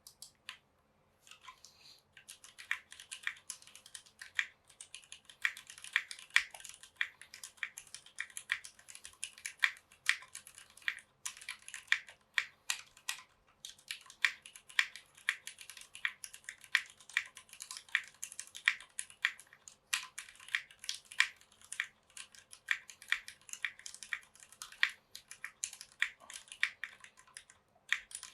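Typing on a Tofu60 acrylic-case mechanical keyboard with stock Cherry MX Black linear switches, an O-ring faux gasket mount and GMK keycaps: a steady run of key clacks that starts about two seconds in, with a few brief pauses.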